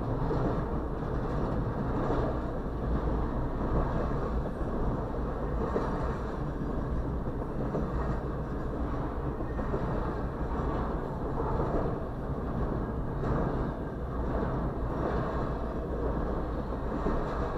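Double-stack intermodal freight train rolling past: a steady rumble of well cars on the rails, heard muffled from inside a stopped vehicle.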